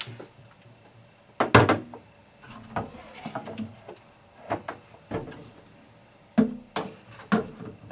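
Hollow plastic garden pressure sprayer tank being handled and set down on a kitchen counter: a string of separate knocks and clunks, the loudest about a second and a half in.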